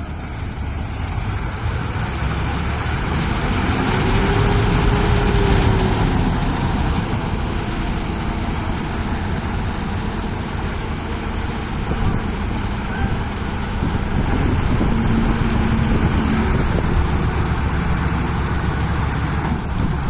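Diesel engines of combine harvesters running steadily under load, a dense low rumble that swells a little a few seconds in, as one combine strains on a chain to pull a mud-stuck combine free.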